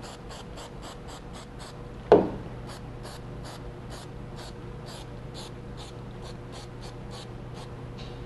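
Aerosol spray adhesive hissing in quick short bursts, several a second, from a can set to its low spray pattern. One sharp knock about two seconds in.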